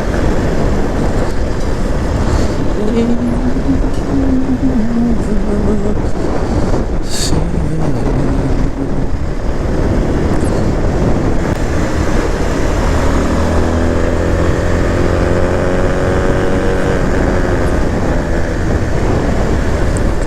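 Vehicle engine and road rumble heard while riding through traffic. The engine's pitch rises and falls a few times, most clearly in the second half.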